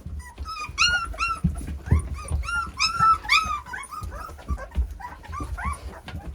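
Litter of three-week-old North American Mastiff puppies whimpering and squealing: many short, high-pitched cries in quick succession, bunched thickest in the first half, over low bumps and shuffling.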